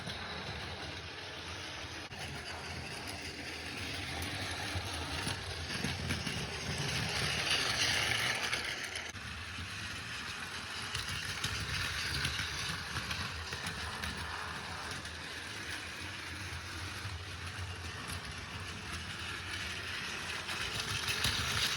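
Battery-powered Plarail toy train running on plastic track: a steady motor whir with rattling wheels. It grows louder about seven seconds in and again near the end.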